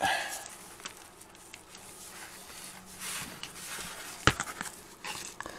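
Low rustling and light ticks as a rubber engine-bay cover panel backed with wire mesh is handled and turned over on a bench. One sharp click comes a little over four seconds in.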